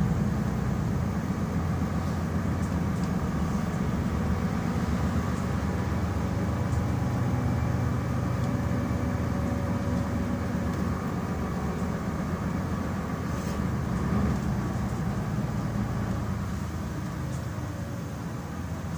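Solaris Urbino 12 III city bus driving, heard from inside the passenger cabin: a steady low engine and road drone, easing slightly toward the end.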